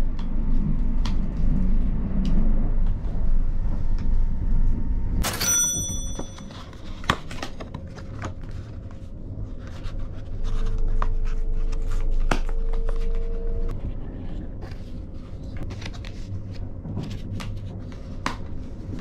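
Cardboard box and paper wrapping being opened and unfolded by hand: scattered clicks, rustles and crackles. Under it is the low rumble of a train running, loudest in the first few seconds. A short bright ding comes about five seconds in.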